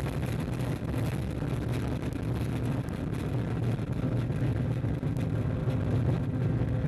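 Ariane 5 rocket roaring in its climb just after liftoff: the Vulcain core engine and two solid boosters make a deep, steady rumble with a dense crackle over it.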